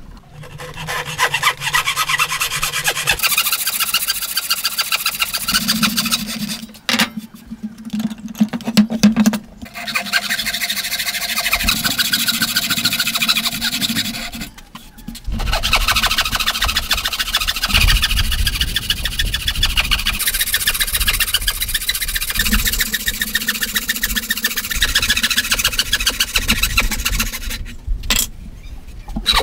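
Wooden frame saw cutting through a timber beam by hand, in quick back-and-forth strokes, in several bouts with short pauses between them.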